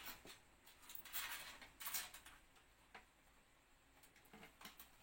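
Faint scattered clicks and rustles of a PC power supply's cables being handled inside the computer case, with a few light knocks about a second, two seconds and three seconds in.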